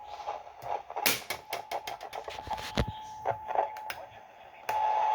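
Clicks and knocks of buttons and handling on a weather-alert radio being switched back on, over a faint steady tone. Near the end a louder steady alert tone comes in.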